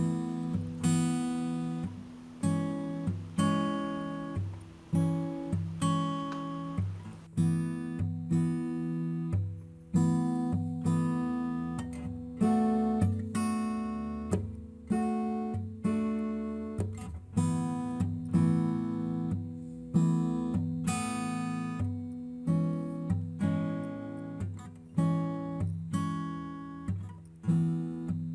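Background music: an acoustic guitar strummed in steady chords, a new chord roughly every second, each ringing and fading before the next.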